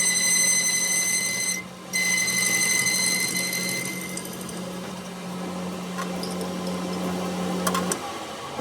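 Electric power-tool motor running at a steady speed, with a high whine over a lower hum. It cuts out briefly about one and a half seconds in. The whine fades about halfway through, and the hum stops just before the end with a few sharp clicks.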